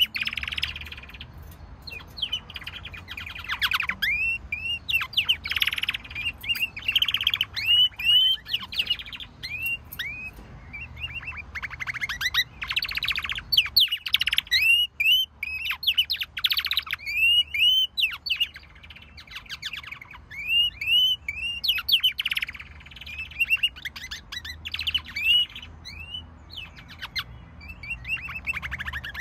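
Domestic canaries singing: a long, high-pitched song of rapid rolling trills alternating with series of quick repeated chirps, broken by short pauses.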